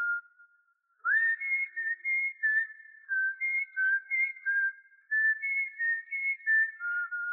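A whistled tune: one clear, high melody line of short notes stepping up and down. It stops briefly near the start and comes back about a second in with an upward slide.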